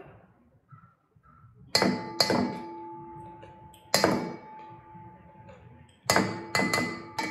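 A utensil knocking against a stainless steel mixing bowl several times as mayonnaise is scooped and shaken off into it, each knock leaving the bowl ringing briefly. The knocks start about a second and a half in and come in clusters.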